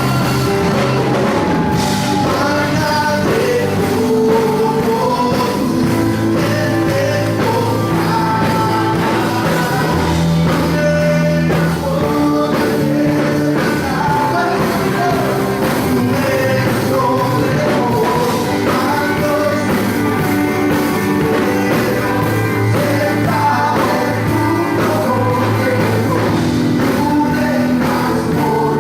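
Worship music: a singer over a full band with drum kit, at a steady, upbeat pace.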